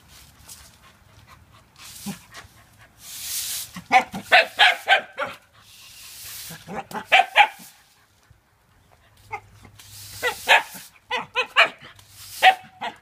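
Shiba Inu barking in quick bouts of short calls, with a push broom's bristles swishing across concrete between the bouts.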